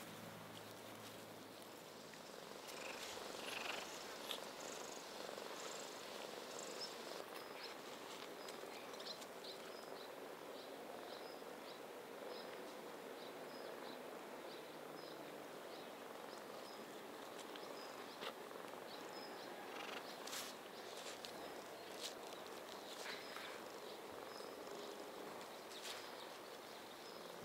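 Domestic cat purring steadily, with a faint high chirp repeating about twice a second behind it through the middle stretch.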